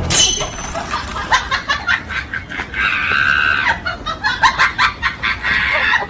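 Squeaky toy being chewed by a husky: a quick run of short, sharp squeaks, with one longer squeal about three seconds in.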